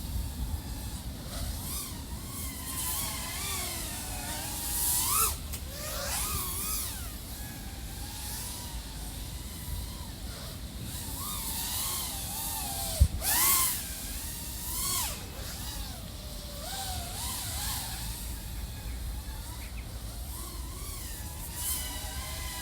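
3.5-inch FPV quadcopter's XING 1504 3100KV motors and props whining in flight, the pitch sliding up and down constantly with throttle changes, with bursts of rushing air and a steady low wind rumble. A single sharp knock comes about 13 seconds in.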